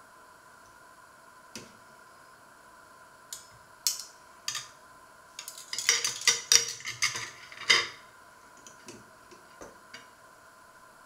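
Metal cutlery clinking and scraping against a porcelain plate and a stainless steel steamer basket: a few scattered clicks, then a dense run of sharp clinks for about two seconds past the middle.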